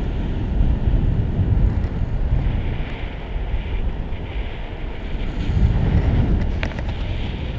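Wind buffeting an action camera's microphone high on an exposed crane top: a loud, uneven rumble that rises and falls in gusts.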